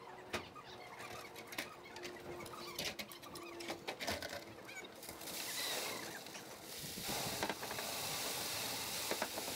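Crane-hung concrete bucket discharging into a wall form: scattered metal knocks and faint squeaks, then a steady rushing noise from about five seconds in as the concrete runs down the chute.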